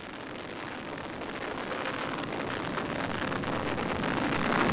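Engines of an Astra launch rocket firing in flight: a noisy rumble that grows steadily louder.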